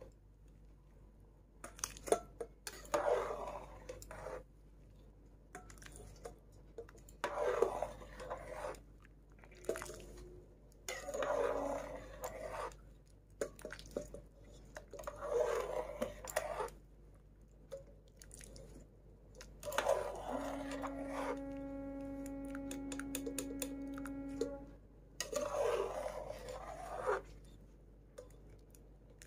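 Starchy cooking water poured off parboiled rice into a steel bowl, in repeated splashing pours a few seconds apart, draining the rice part-cooked for biryani. About two-thirds of the way through, a steady pitched tone sounds for about four seconds.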